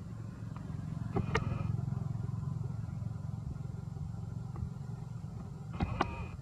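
Steady low engine rumble of motor traffic, with two brief sharp clicks, one about a second in and one near the end.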